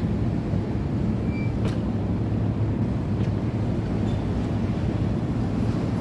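Self-serve car wash pressure pump running with a steady low hum and rumble, while soap is flowing, with a few faint clicks.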